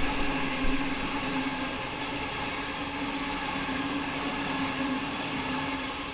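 Sydney Trains electric passenger train running along the platform, a steady rumble with a held hum, and a couple of thumps in the first second.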